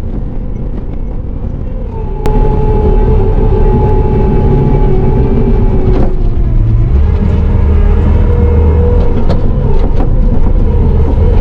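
Bobcat T650 compact track loader's diesel engine running under load, heard from inside the cab. About two seconds in it gets markedly louder with a steady whine added, and a deeper drone sets in partway through, with a few sharp knocks.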